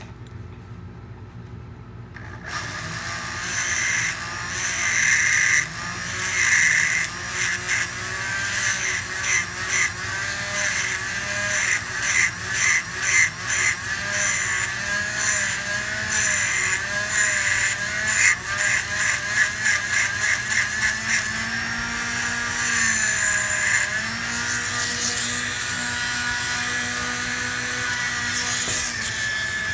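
A foot-pedal, variable-speed rotary tool on a flex shaft starts about two seconds in. Its shaped burr grinds a pocket into the hard rubber bite plate of a metal mouthpiece, around the tooth-worn area. The motor's speed wavers, with rapid, broken scraping as the burr bites in through the middle, and a steadier grind near the end.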